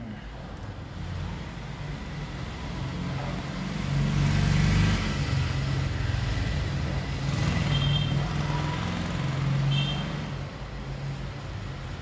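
Low motor rumble of passing road traffic, swelling about four seconds in and again around eight to ten seconds, with two brief high tones near eight and ten seconds in.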